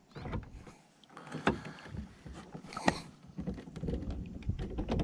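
Irregular knocks, taps and clicks on a small aluminium fishing boat's hull and deck, the sharpest about one and a half and three seconds in.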